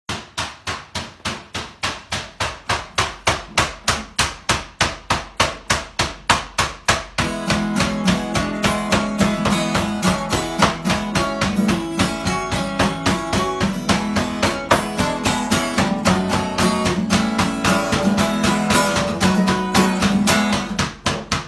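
Acoustic guitar strummed in a steady rhythm, at first as sharp strokes about four a second, then from about seven seconds in as fuller, ringing chords.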